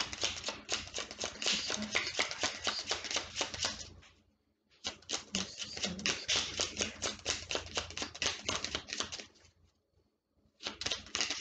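Tarot deck shuffled by hand: long runs of rapid card flicks and clicks. It comes in three spells, with a short pause about four seconds in and a longer one near the end.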